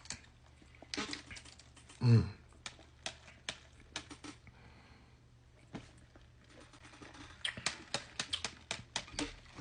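Scattered light clicks and taps of things being handled, thicker near the end, with one short falling vocal sound about two seconds in.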